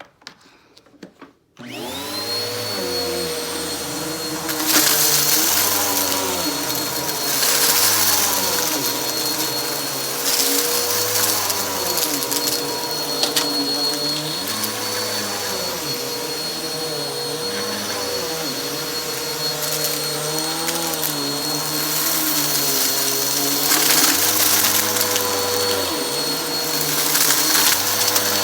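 Vacuum cleaner switched on after a few clicks, its motor quickly spinning up to a steady whine, then run back and forth over carpet, the low hum swelling and dipping with each stroke. Bursts of rattling hiss come as it sucks up crunchy debris.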